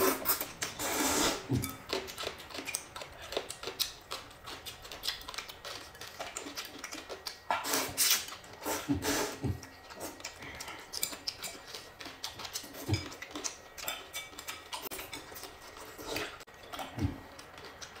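Noodles and soup being slurped from bowls by two people eating, in irregular wet sucking bursts, with occasional light clicks of chopsticks against the ceramic bowls.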